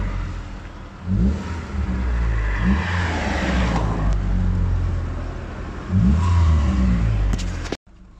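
A 2003 Mitsubishi Lancer's high-mileage 2.0-litre four-cylinder petrol engine running just after an engine restorer was added to its oil, revved three times over a steady idle. The sound cuts off suddenly near the end.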